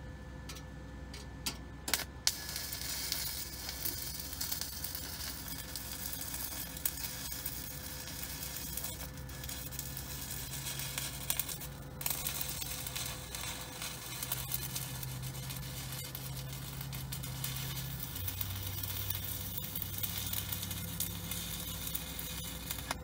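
Stick arc welding on a steel RV crossmember: a few sharp crackles as the electrode strikes the arc about two seconds in, then the arc burns with a steady crackling sizzle.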